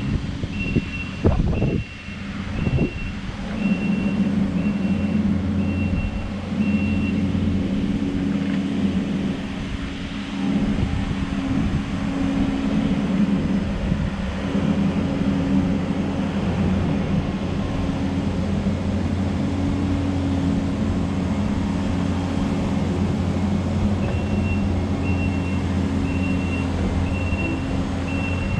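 Diesel engine of a construction machine running steadily while working dirt. Its backup alarm beeps about one and a half times a second for the first several seconds and again near the end, as the machine reverses.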